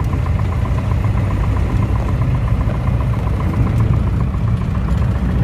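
Single-engine light aircraft's piston engine running steadily, heard from inside the cockpit while the plane rolls along a grass strip, with a fast, even pulsing in the engine note.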